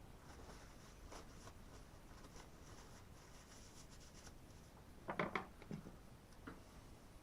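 Faint rubbing and scraping as a chainsaw housing and a Torx driver are handled, with a short cluster of clicks and knocks about five seconds in.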